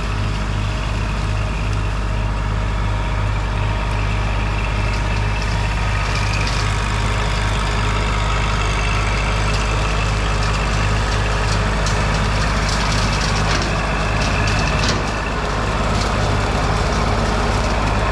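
Compact diesel tractor engine running steadily, with scattered light clicks and crackles above it from about five seconds in.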